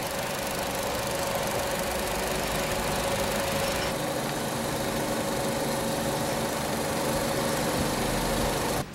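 Cinema film projector running: a steady mechanical whirring noise with a constant hum. It cuts off suddenly near the end.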